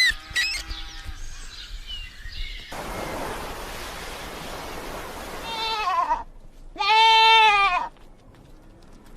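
A goat bleating: a short wavering bleat about five and a half seconds in, then a louder, longer one about a second later. Before that there is a steady hiss-like noise.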